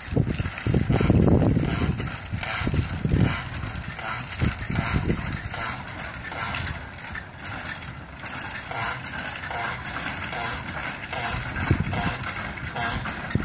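Replica of the 1815 "Steam Elephant" steam locomotive puffing as it draws slowly closer, a steady rhythm of exhaust beats. Wind buffets the microphone in the first couple of seconds.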